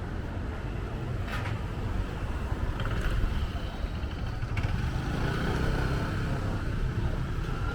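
Street traffic: a steady low rumble of passing vehicle engines that swells a little after the middle, with a few short sharp sounds over it.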